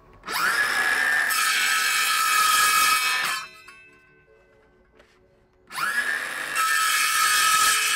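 Cordless circular saw with an aluminium-cutting blade run twice: each time the motor spins up with a rising whine, then holds a steady high whine with hiss as it cuts through aluminium sheet. It stops after about three seconds, and after a pause of about two seconds it starts again.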